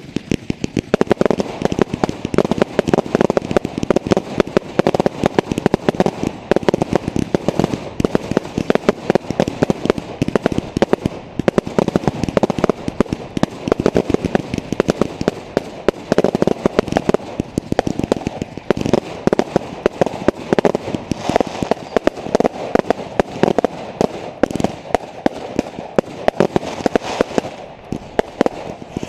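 Fireworks going off in a dense, continuous barrage of bangs and crackles, many reports a second, easing briefly near the end.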